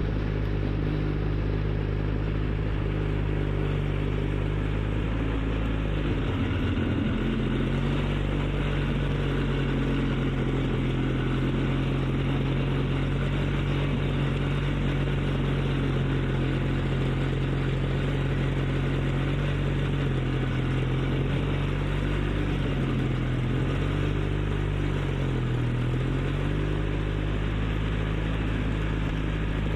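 ATV engine running at a steady speed, its pitch dipping briefly about seven seconds in and twice more towards the end.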